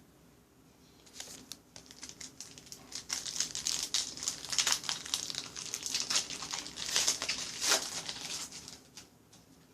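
Trading-card pack wrapper crinkling as it is torn open and handled. The crackly rustle starts about a second in, is loudest in the middle and dies away near the end.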